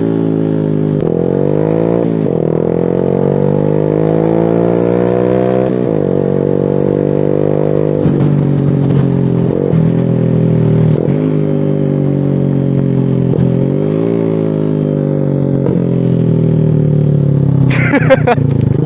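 A 2023 Suzuki Smash R's single-cylinder four-stroke engine, breathing through an SC Project aftermarket exhaust, pulling hard under acceleration. The engine note climbs and then drops sharply about six times as the rider shifts up through the gears, with a quick sharp rev near the end.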